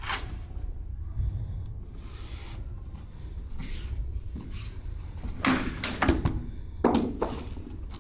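A katana swishing through the air in a series of cuts, the two strongest swishes a little past halfway and near the end, with the rustle of the swordsman's gi and hakama. A steady low hum runs underneath.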